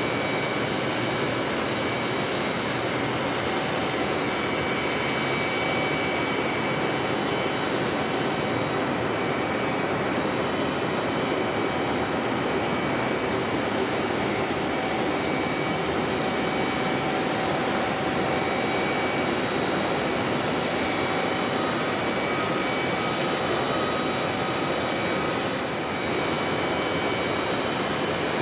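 Jet airliner engines running steadily: a Bombardier CRJ regional jet's rear-mounted turbofans as it lands and rolls out on the runway, a continuous rush with a faint high whine over it. A brief dip near the end, then a second jet airliner on approach.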